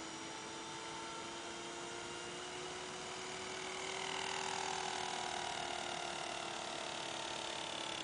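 T-Rex 500 RC helicopter's main rotor and motor spinning on the ground, making a steady whine of several tones. About four seconds in it gets louder and a higher tone slides down in pitch. The odd tone is put down to a sticker on the main blades.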